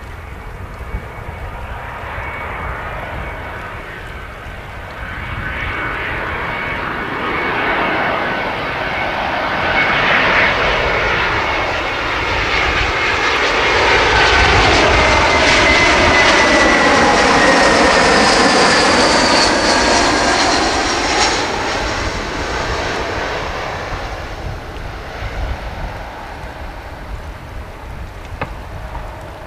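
Airbus A321-200 airliner on final approach with its jet engines running: the whine and rumble grow louder as it nears and are loudest about halfway through as it passes close by. High engine tones slide down in pitch as it goes past, then the sound fades as it flies on toward touchdown.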